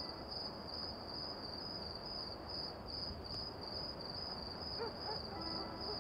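Crickets chirping: a high, steady trill pulsing about four times a second over faint low background noise.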